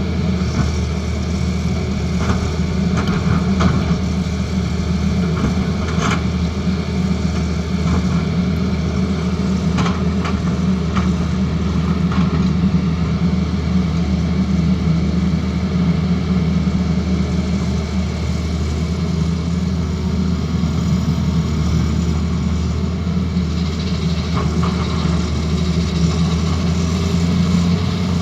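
Diesel engine of a Tata Hitachi Zaxis excavator running steadily, with a few short knocks in the first half.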